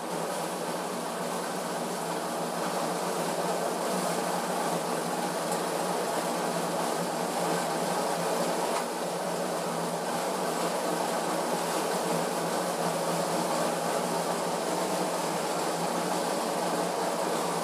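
Diesel injection pump test bench running steadily, spinning an Isuzu 4JB1's rotary injection pump while it is calibrated.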